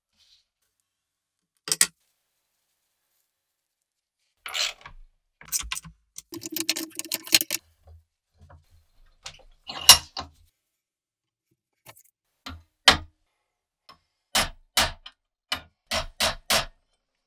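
Hand tools clinking and clanking on the steel parts of a rusty M1 Garand bayonet as it is taken apart in a bench vise: scattered sharp clicks, a stretch of clattering in the middle, then a run of about six sharp metal taps near the end.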